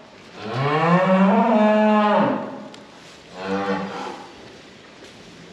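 Cow mooing twice: one long low call of about two seconds, then a shorter one about a second later.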